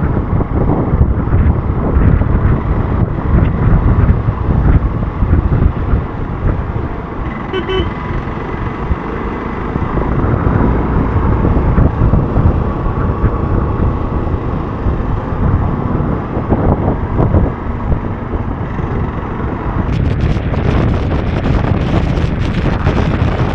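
Hero Xpulse 200 motorcycle on the move, its engine and wind noise on the microphone rumbling steadily, with a short horn toot about eight seconds in. The wind hiss turns harsher and brighter near the end.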